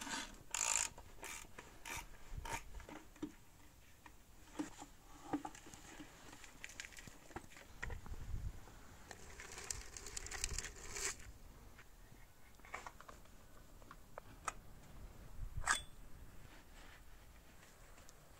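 Hand tools and old motorcycle engine parts being handled during disassembly: scattered clicks, metal clinks, scrapes and rustles, fairly quiet, with a sharper knock about three-quarters of the way through.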